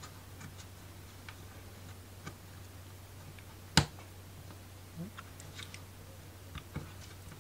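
Small wooden pieces of a ROKR marble-run kit clicking and tapping as they are pressed together by hand: scattered faint ticks, with one sharp click about four seconds in.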